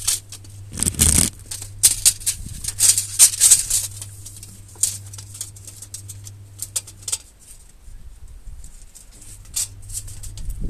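Steel tape measure being handled: its thin metal blade rattles and clicks as it is pulled out and repositioned. The clicks come in dense bursts over the first few seconds, with one heavier knock about a second in, and turn sparser after that.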